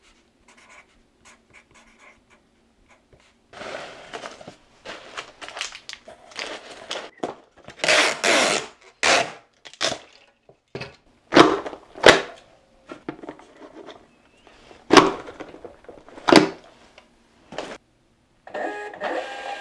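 Order packing: a marker scratching faintly on a card, then packing peanuts rustling in a cardboard box. A handheld packing-tape gun then screeches as tape is run across the box flaps and snaps off in several sharp strokes. Near the end a small thermal label printer starts up with a steady whirring hum.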